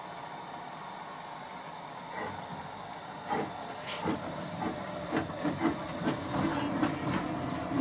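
Steam tank locomotive hissing steadily with steam blowing from its cylinder drain cocks, then setting off: from about two seconds in, its exhaust beats start, a few uneven chuffs a second, growing louder as it comes closer.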